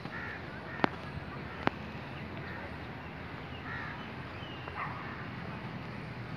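Open-air park ambience: a steady background hum with a few short bird calls here and there. Two sharp clicks come about a second in and just under two seconds in.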